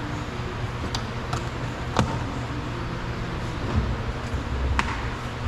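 A few sharp clicks and knocks from handling and working loose a plastic car-door trim piece, the loudest about two seconds in, over a steady low hum.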